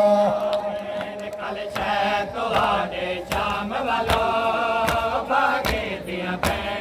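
A crowd of men chanting a noha refrain together while beating their chests in matam: sharp hand slaps in a steady rhythm, about two to three a second, under the voices.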